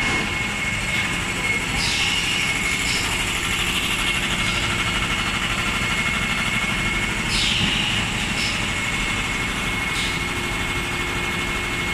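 Automatic three-cavity PET bottle blow moulding machine running: a steady mechanical din with a constant thin high whine. Every few seconds there are short, sharp hisses of air.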